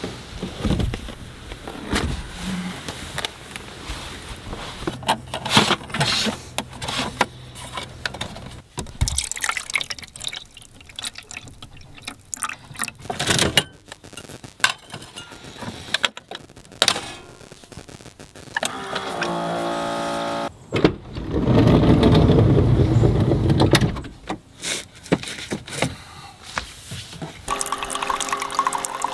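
Knocks and rustles of handling, then a Keurig single-serve coffee maker brewing: a short pump hum followed by a few seconds of loud gushing as coffee runs into an enamel mug.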